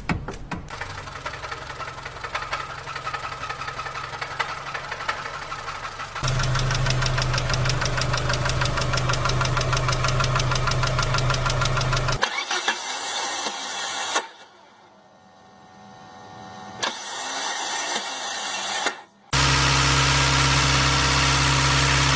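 Car engines running in a series of short recordings cut one after another, several with a fast, even knocking or ticking beat over the engine note, the kind of noise that marks an engine fault.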